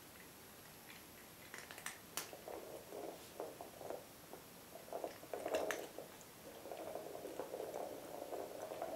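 Small hard ball rolling and bumping across a laminate floor as a cat pushes it with its nose, an uneven rattling rumble with a few sharp clicks.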